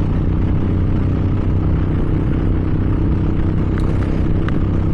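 Small single-cylinder Honda motorcycle engine running steadily at cruising speed, heard from the rider's position with wind noise over it.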